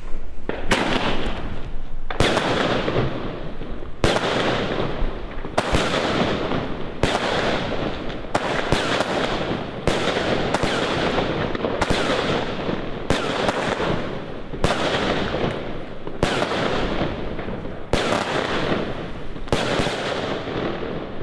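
A 16-shot consumer firework cake (Original Fireworks Blue Palm, 200 g of powder) firing its shots one after another. There are about sixteen sharp reports, one every second or so and a little faster in the middle, with a continuous rushing noise between them.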